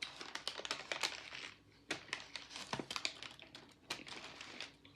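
Eating noises close to the microphone: a run of small, irregular clicks and crackles with short pauses.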